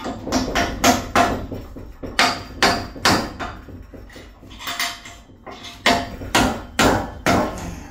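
Repeated metal-on-metal hammer blows on a spark plug held in a steel bench vise, roughly two a second with a short pause midway, as the porcelain insulator is knocked at to free it from the plug's shell.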